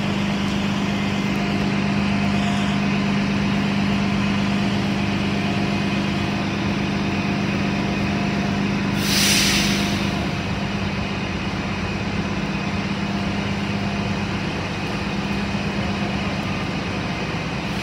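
Diesel city buses idling and pulling through a bus terminal, a steady low engine hum over an even background rush. About nine seconds in, a short loud hiss of air from a bus's air brakes.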